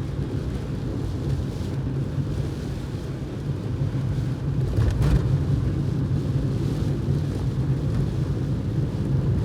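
A car driving, heard as a steady low road and engine rumble, with one brief knock about halfway through.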